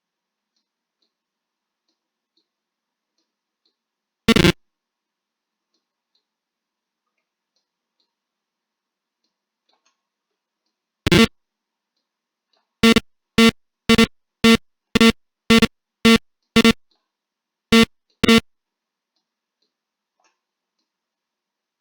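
Alarm-clock buzzer beeping: short, identical low buzzy beeps, a single one, then another several seconds later, then a quick run of about two beeps a second, followed by a short pause and two more. This is the buzzer being driven when the clock's alarm goes off.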